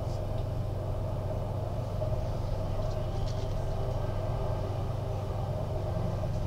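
Electric passenger train running at speed, heard from inside the carriage: a steady low rumble with a steady mid-pitched whine, and a few faint light clicks.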